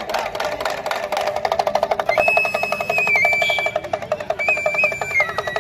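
A snake charmer's small hand drum rattled fast and evenly, about ten beats a second, to call out the snake. About two seconds in, a high piping melody of a few held notes joins it.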